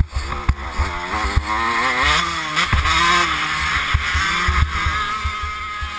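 Motocross bike engine revving hard as it is ridden round a dirt track. Its pitch climbs and falls several times as the throttle opens and closes, over repeated dull low thumps on the helmet-mounted microphone.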